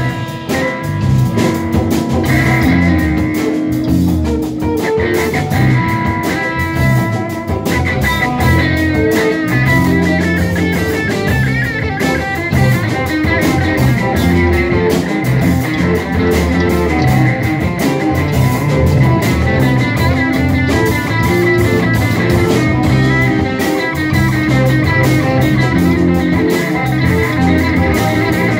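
Live rock band playing: electric guitars over electric bass and a drum kit, with a steady drum beat throughout.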